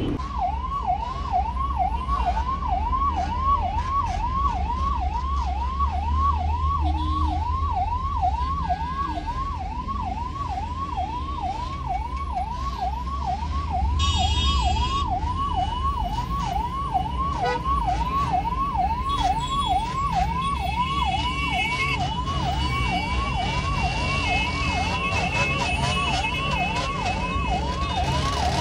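Ambulance siren on a fast yelp, a rising-and-falling wail repeating over and over without a break. It is heard from inside the moving vehicle over a low engine and road rumble.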